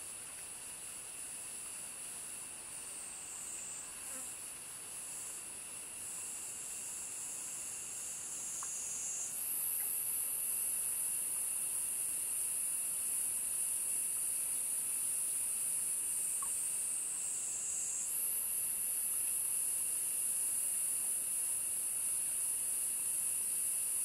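Insects singing: a continuous high, shrill buzz that twice slides down in pitch and then snaps back up, growing louder about ten seconds in. Fainter steady trills sit lower in pitch.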